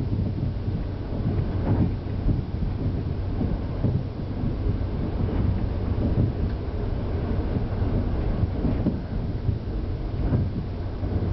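KTR001-series diesel railcar running along the track, heard from inside behind the cab: a steady low rumble with an engine hum, and a few faint clicks.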